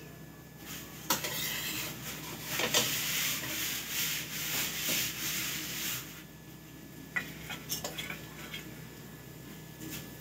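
Flat metal spatula scraping and rubbing across a griddle pan (tawa) around a frying onion paratha: a steady scrape for about five seconds starting about a second in, then a few short scrapes and taps.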